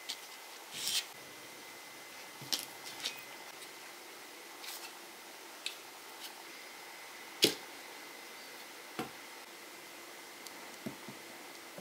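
Sparse clicks and knocks of hand tools and an old wooden cleaver handle being handled and set down on a workbench, with one sharper knock a little past halfway.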